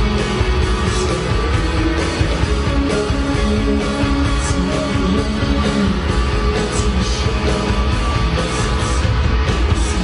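A live rock band playing loud: electric guitars over a drum kit, steady and continuous.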